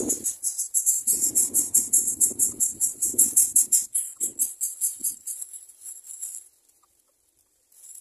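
A fast, even, high-pitched insect trill, about ten pulses a second, that stops about six and a half seconds in. A few irregular low sounds come under it in the first half.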